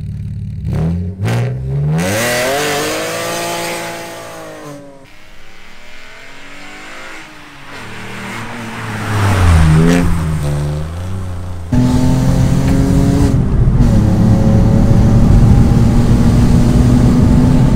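Alfa Romeo 147 GTA's 3.2-litre Busso V6 revving and accelerating. Its note rises in pitch and holds, then fades and falls away. About ten seconds in it surges loudly again, and from about twelve seconds it runs loud and steady, its pitch climbing slowly under acceleration.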